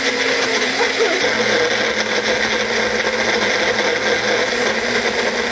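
Magic Bullet personal blender running steadily as it blends a batch. Its motor note drops slightly about a second in.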